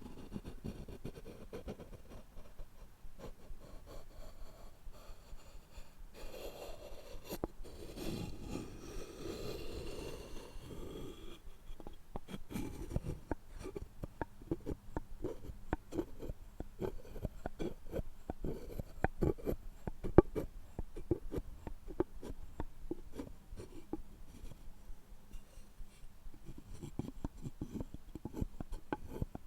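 Close-up handling of wooden items: a stretch of rubbing and scraping on wood, then a long run of quick, light taps and clicks on wood.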